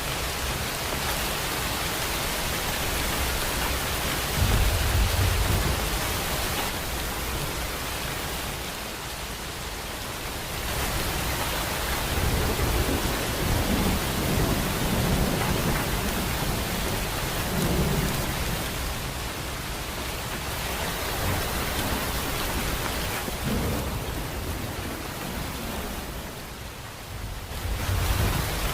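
Steady rain falling, with low rumbles of thunder rolling in several times.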